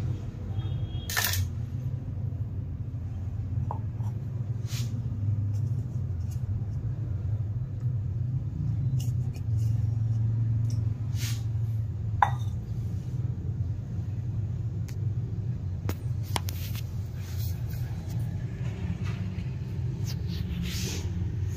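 Steady low background rumble with a few sharp clicks scattered through it, one about a second in and the sharpest about twelve seconds in.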